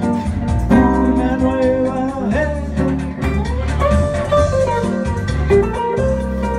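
Semi-hollow electric guitar playing an instrumental break of held melodic notes, over a steady bass accompaniment.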